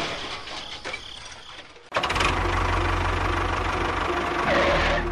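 A broad rushing noise dies away. About two seconds in, a tractor engine starts abruptly and runs steadily with a fast, low chugging knock.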